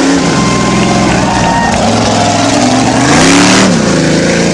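Lifted 4x4 mud-bogging truck's engine revving hard through the mud pit, its pitch climbing and falling several times. A loud rushing burst comes about three seconds in as the engine peaks and mud is flung.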